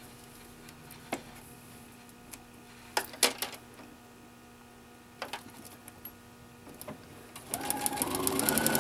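A few sharp clicks and taps, then about seven and a half seconds in an electric sewing machine starts stitching through fabric and a paper guide, its motor whine rising as it speeds up under a rapid run of needle ticks.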